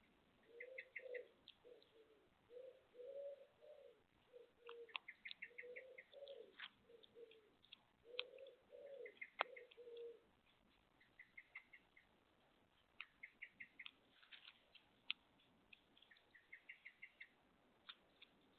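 Faint pigeon cooing: a run of low cooing phrases that stops about ten seconds in. Through it and after it, a small bird gives quick trills of short, high chirps, and there are scattered faint clicks.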